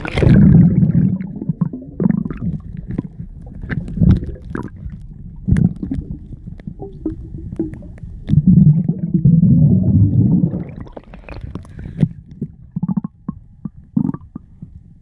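Water heard through a microphone held underwater: a muffled low rumbling and sloshing that surges loudest at the start and again about two-thirds of the way through, with scattered sharp clicks and knocks throughout.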